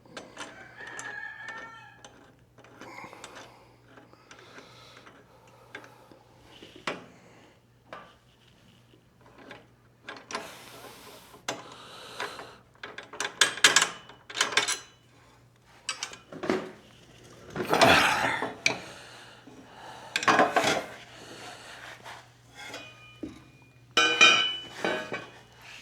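Irregular metallic clinks, scrapes and clatter of a motorcycle hitch's bolts, spacers and hand tools being handled and worked, with a ringing clink near the end. A steady low hum runs underneath.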